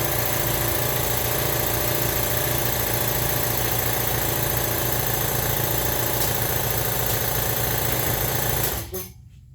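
Shop air compressor running steadily with a regular low pulsing, then switched off, the sound cutting off suddenly near the end.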